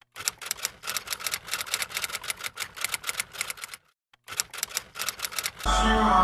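Typewriter keys clacking in a quick, even run of about five clicks a second, pausing briefly a little before halfway. Music comes in near the end.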